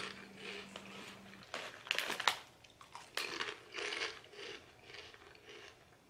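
Mouth crunching and chewing puffed sour cream and onion veggie straws: a run of irregular crisp crunches in the first half, then softer chewing.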